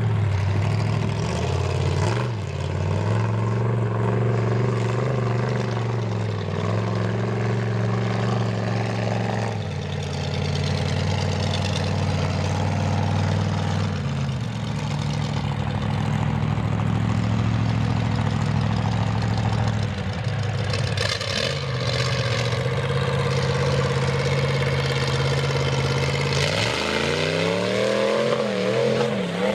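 Ford 460 big-block V8 mud truck engine on open headers, running under load at steady revs with a few brief drops in pitch, then revved up and down several times near the end.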